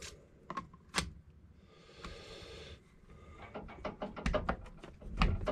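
Tools and metal parts clicking and knocking as a Poulan 245A chainsaw is taken apart, with a short scraping rustle about two seconds in and a quick run of clicks and knocks in the last two seconds.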